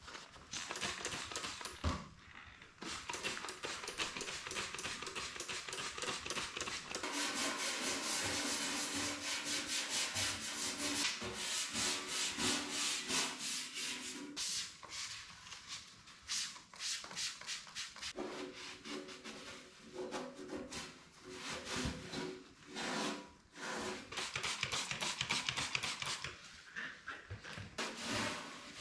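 Scrubbing sheet-metal welder panels by hand with a brush and Purple Power degreaser, a rasping rub in repeated back-and-forth strokes.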